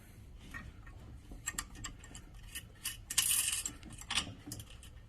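Light metallic clicks and ticks of small hardware being handled as the tension wire and spring are worked free, with a short rattle about three seconds in.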